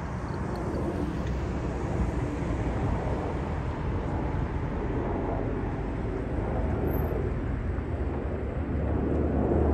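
Boeing 737-800 airliner's CFM56-7B turbofan engines heard from below as it banks into a turn: a steady, low jet rumble that grows slightly louder near the end.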